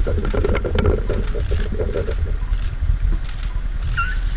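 Safari vehicle's engine running with a steady low rumble, and the vehicle's body knocking and rattling on the dirt track.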